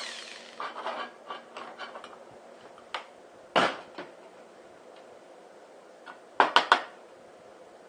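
Steel food cans and tools being handled on a bench after drilling: light metallic clinks and rattles, a sharper clank about three and a half seconds in, and three quick clanks near the end.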